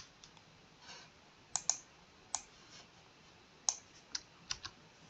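About seven short, sharp clicks of a computer mouse and keyboard, irregularly spaced, as text on a slide is clicked on and selected.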